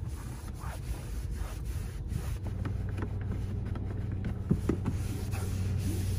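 Microfiber cloth rubbing and wiping across a car's textured plastic dashboard, wet with sprayed Armor All protectant. A low steady hum comes in about two seconds in.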